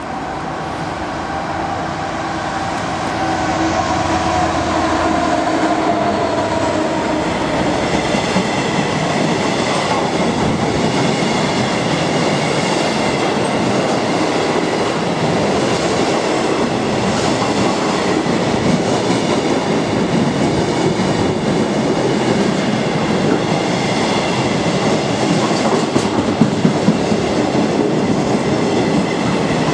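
A diesel-hauled container freight train passes close by at speed. In the first few seconds the locomotive's engine note grows louder and falls in pitch as it goes by. After that comes a steady rumble and clatter of the container wagons' wheels over the rail joints.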